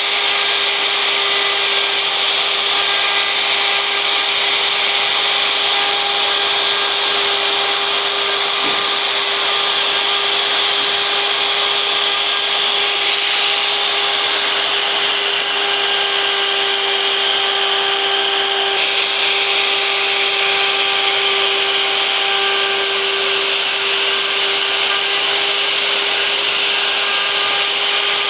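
CNC wood router running and carving wood: a steady spindle whine held at one pitch over a hiss of cutting.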